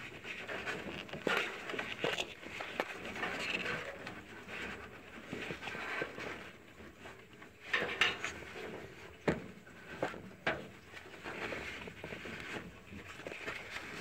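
Gloved hands rustling and fumbling with wire leads, with a few short sharp clicks partway through.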